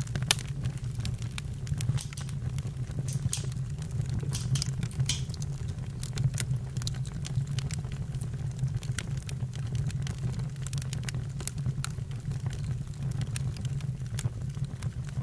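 Campfire burning: irregular sharp crackles and pops from the burning wood over a steady low rumble.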